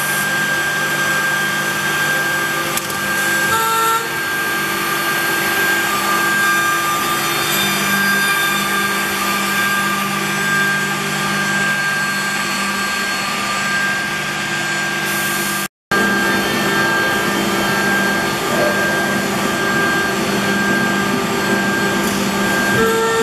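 Nanxing MFB(Z)80 through-feed edge banding machine running, its motors giving a steady whine with several constant tones over a dense hiss, with wood-cutting noise from the trimming units. The sound drops out for a split second about two-thirds of the way through.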